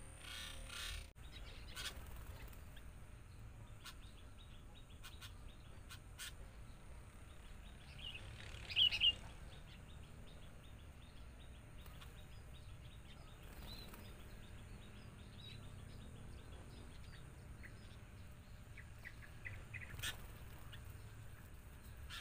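Sooty-headed bulbuls chirping over steady outdoor background noise, with one loud burst of chirps about nine seconds in and a few short chirps near the end.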